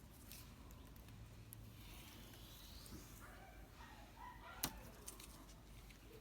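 Near silence with faint, indistinct background sounds and one sharp click about four and a half seconds in.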